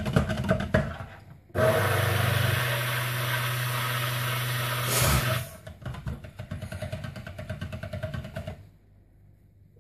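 Handheld stick blender running in a bowl of cold-process soap batter to emulsify it. An uneven rattling stretch gives way, just under two seconds in, to the motor running steadily with a low hum for about four seconds. Then comes another uneven, rattling stretch, and the sound stops near the end.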